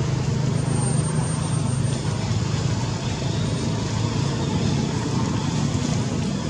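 Steady background noise: a constant low hum under an even hiss, with no distinct events.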